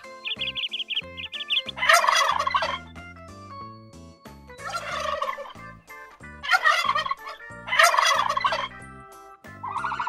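Four loud, harsh calls from a fowl, each about a second long, over background music.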